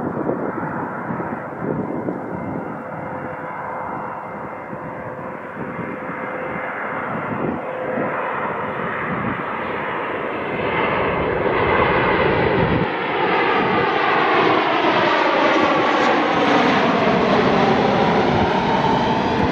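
Jet engines of a Boeing 737 MAX, its CFM LEAP-1B turbofans, on a low pass toward the listener, growing steadily louder and brighter. From about halfway through, a sweeping whine rises and falls in pitch as the airliner closes in.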